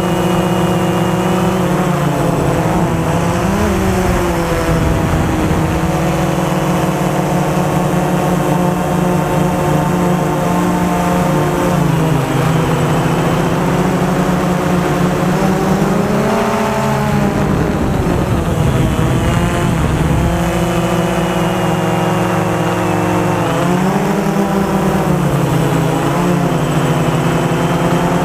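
A DJI Phantom 2 quadcopter's electric motors and propellers buzz steadily, heard close from the camera mounted on the drone. Their pitch slides up and down together several times as the motors work against strong wind, with a low wind rumble underneath.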